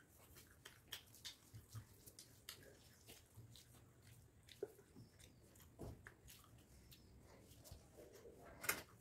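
Faint eating sounds: scattered soft clicks of chewing and lip smacks as a person eats rice and fish by hand, with fingers working the rice on a steel plate; one sharper click near the end.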